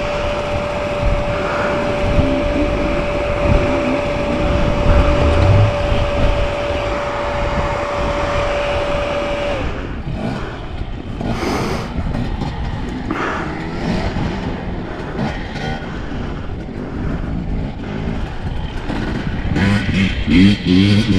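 Enduro motorcycle engine running, with a steady whine that cuts off about ten seconds in, followed by uneven throttle surges and revving near the end.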